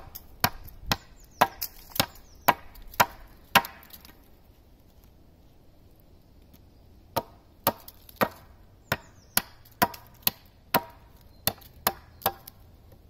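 Hand axe chopping into the end of a green hazel stake resting on a tree stump: sharp wooden strikes about two a second, pausing for about three seconds in the middle before the chopping resumes. The axe is shaping a point on the stake.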